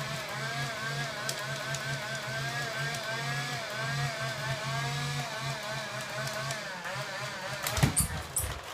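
National (Panasonic) vacuum cleaner motor running with a whine that wavers up and down in pitch, over a low hum that pulses on and off in short beats, played like a motorbike revving 'call'. A few thumps near the end.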